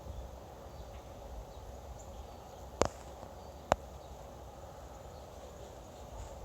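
Low steady background noise broken by two sharp clicks, a little under a second apart, near the middle.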